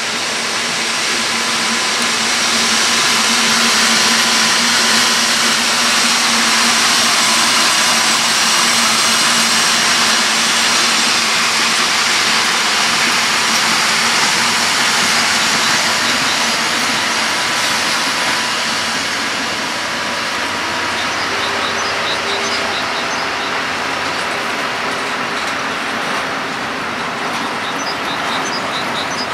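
Red WFL diesel locomotive, an ex-DR class 202 (V 100), passing with its engine running, loudest a few seconds in. Then a string of empty flat wagons rolls by, their wheels clattering over the rail joints.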